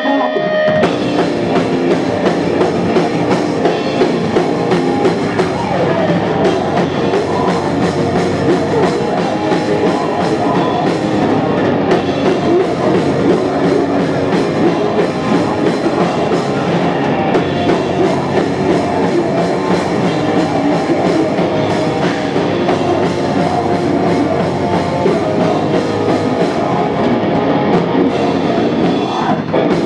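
Live hardcore band playing loud: drum kit, electric guitar and electric bass. The whole band comes in together just after the start.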